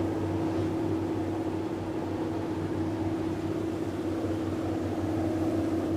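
River tour boat's engine running steadily under way, a constant-pitched hum heard from on board.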